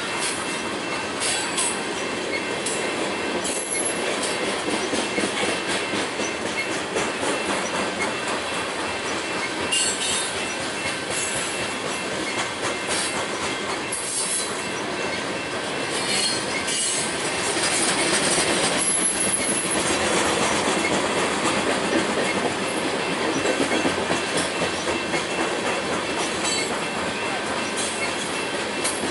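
Coal train cars rolling past: steel wheels running on the rails with repeated clacking over rail joints and a thin, high, steady wheel squeal over the rumble.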